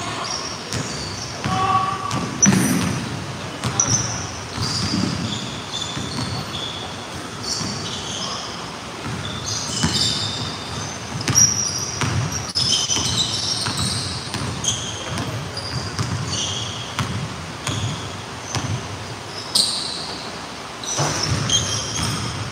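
Basketball game on a hardwood gym court: the ball bouncing on the floor and sneakers squeaking in short, high chirps, all echoing in the large hall.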